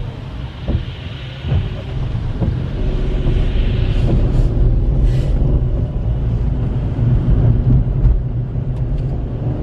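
Road noise inside a car driving on a rain-soaked road: a steady low rumble of engine and tyres that grows louder from about three seconds in. Tyres hiss on the wet surface as oncoming cars pass through the standing water.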